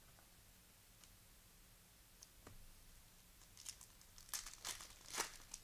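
Cellophane wrapper of a trading-card cello pack crinkling and tearing as it is opened: a quick run of sharp crackles over the last two seconds, after a few faint clicks.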